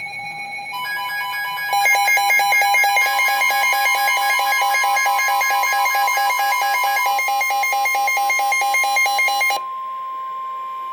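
Emergency alert tones for a severe thunderstorm warning: a steady alert tone with a rapid, pulsing electronic beeping alarm layered over it. The beeping stops suddenly about a second before the end, leaving the steady tone.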